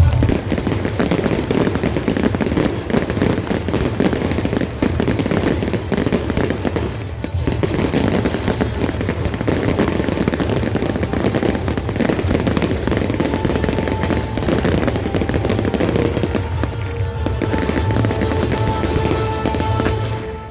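Fireworks going off in a dense, continuous barrage of rapid bangs and crackles, with music playing underneath. The barrage dies away right at the end.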